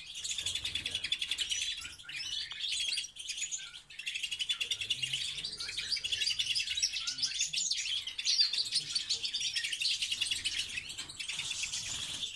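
Several European goldfinches of the large 'major' race singing and twittering together in a continuous rapid, high chatter, with a brief lull about four seconds in.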